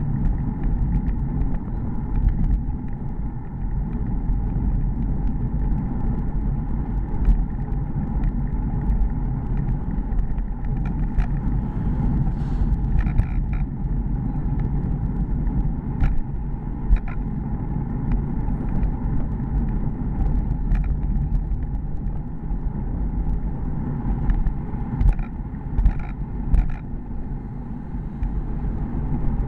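Steady wind and road rumble picked up by a handlebar-mounted bike camera while riding, with a few sharp clicks and knocks around the middle and near the end.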